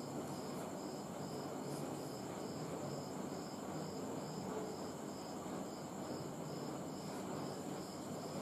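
Faint, evenly repeating high chirp, about three chirps a second, from an insect, over steady background hiss.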